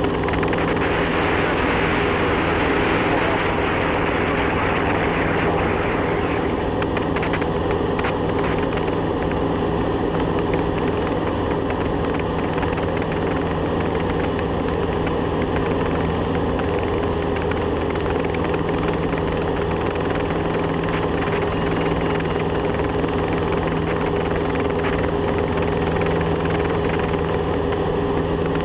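Diamond DA40 single-engine light aircraft's engine and propeller running steadily at climb power, heard inside the cockpit as a constant drone with airflow hiss.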